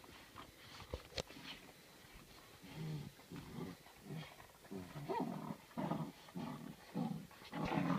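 Eight-week-old Rhodesian Ridgeback–Saint Bernard cross puppies growling in play while tugging at a sock: a run of short low growls, about two a second, from about three seconds in, after a sharp click about a second in.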